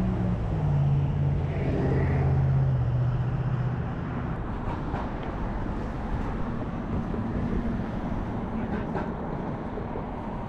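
Steady rumble of passing road traffic, with a vehicle's low engine hum that fades out about four seconds in.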